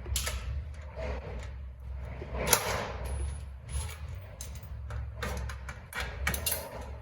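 Scattered knocks, clicks and clinks from handling parts and tools, with a louder scraping rush about two and a half seconds in, over a steady low hum.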